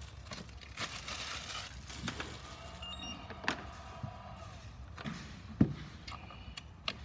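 Handling of a ToolKitRC M4Q charger as it is powered on: rustling, a short high electronic beep about three seconds in as it starts up, and a few clicks, the sharpest a little before the end.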